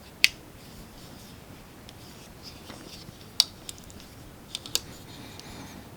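Pursuit 17-in-1 folding multi-tool being handled: a few sharp metal clicks from its folding parts, one just after the start, then two pairs a little past the middle.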